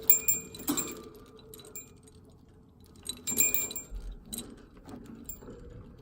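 Small metal objects jingling and clinking with a light ringing: a burst at the start, another about three seconds in, then a few fainter clinks.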